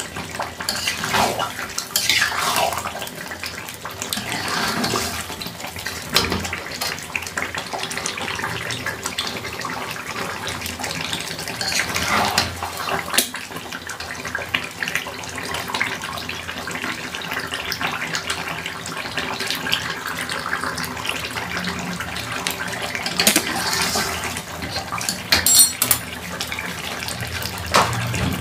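Chicken karahi gravy simmering and sizzling in a karahi (wok), stirred with a metal spatula that scrapes and knocks against the pan now and then.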